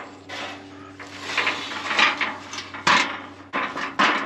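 Seized factory hinge on a Powder River steel pipe gate being worked back and forth by hand: metal grinding and creaking on metal in four or five strokes. The hinge is rusted tight and has frozen solid.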